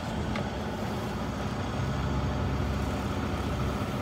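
Heavy truck's diesel engine starting up and running, heard from inside the cab. Its low rumble swells about two seconds in and eases back near the end as it settles.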